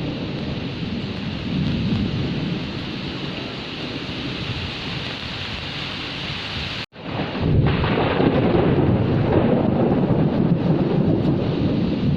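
Heavy rain with low rumbling thunder. About seven seconds in the sound cuts out completely for a split second, then the rain and rumble come back louder.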